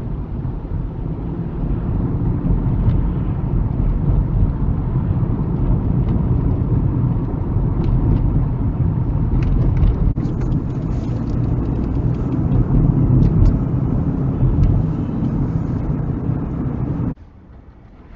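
Engine and tyre road noise of a moving car heard from inside the cabin through a dash cam, a steady low rumble. Near the end it drops abruptly to a much quieter background, with the car standing still.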